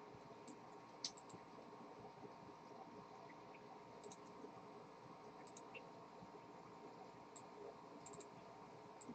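Faint, scattered clicks of someone working a computer, a dozen or so irregular clicks over a low steady room hum, the sharpest about a second in.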